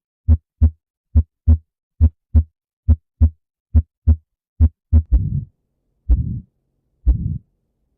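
Chest sounds heard through a stethoscope: paired heart sounds (lub-dub) at about seventy beats a minute. From about five seconds in, each beat becomes a longer, low rushing sound.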